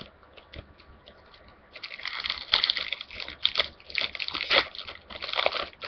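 Foil wrapper of a Yu-Gi-Oh! booster pack crinkling and tearing as it is opened by hand. It starts with a few faint clicks, and from about two seconds in a dense, rapid crackling runs to the end.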